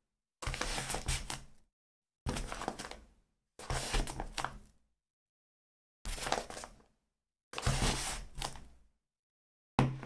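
Small book handled in separate foley takes: six soft thuds, each a sharp hit with a low knock followed by about a second of papery rattle and small clicks as the book settles.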